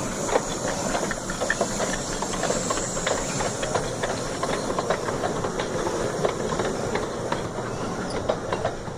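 A 15-inch gauge steam train coming into the station: a steady hiss of steam with light, irregular clicking of wheels over the rails.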